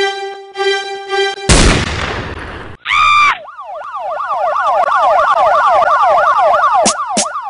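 A few held musical notes, then a sudden loud crash of noise about a second and a half in that dies away over a second. After a short horn-like blast, a siren wails rapidly up and down to the end, with a couple of sharp cracks near the end.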